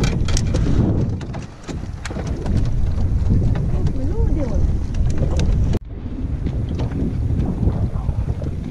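Wind buffeting the microphone of a camera mounted on a fishing kayak, over the sound of moving water. The sound cuts out for an instant about six seconds in.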